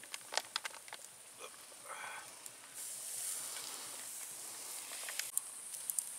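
Turkey cutlets sizzling on a small wood-fired folding grill, with sharp crackles and clicks from the fire and tongs. The sizzling hiss gets louder about three seconds in.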